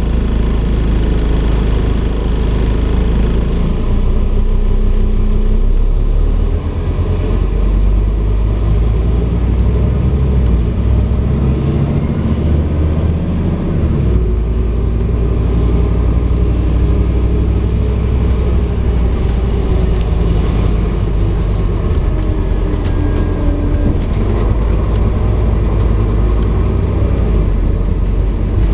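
Scania N230UD double-decker bus's diesel engine and road noise heard from inside the passenger saloon while it drives, the engine note rising and dropping a few times as it accelerates and changes gear.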